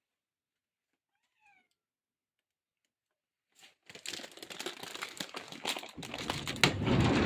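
A cat gives a faint short meow. Then, about halfway through, a dense run of clicks and rustling starts and grows louder toward the end.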